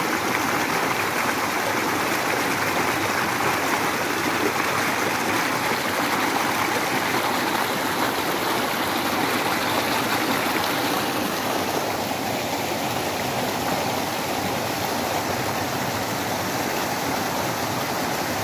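Mountain river flowing fast and steadily, with an even, continuous rush of water.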